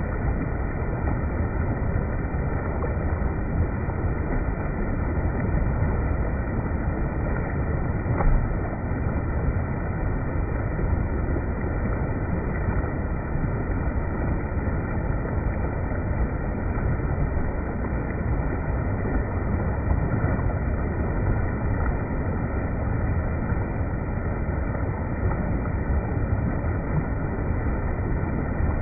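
Spring water running in a steady, unbroken rush, with a single brief knock about eight seconds in.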